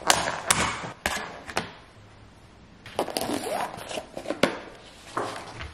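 Clear plastic lid of a takeout container clicking and crackling as it is pried off, with several sharp snaps in the first two seconds. Then a white clamshell takeout box is opened and handled, scraping and rustling.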